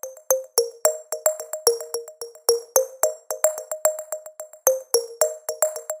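Background electronic music: a quick, even run of short plucked synth notes, each with a crisp click.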